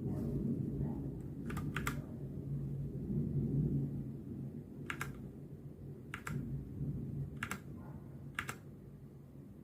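Machenike K500 mechanical keyboard keys pressed one at a time, a handful of separate clacks spaced about a second apart, over a low rumble that fades out.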